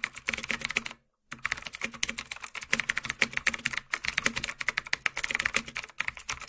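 Rapid typing on a computer keyboard: a dense run of keystroke clicks, many a second, breaking off briefly about a second in.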